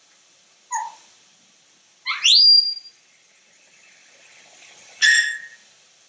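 African grey parrot whistling and calling: a short chirp, a brief call, then a loud whistle sliding steeply up in pitch about two seconds in, and a loud call of several tones together near the end.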